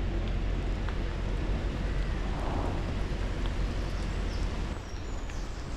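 Narrowboat engine running as a boat passes on the canal, a steady low rumble with outdoor noise over it.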